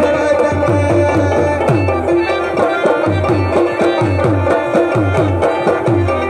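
Live Pashto folk music: a tabla played in a quick, steady rhythm, its low drum strokes sliding downward in pitch, over a held melody line.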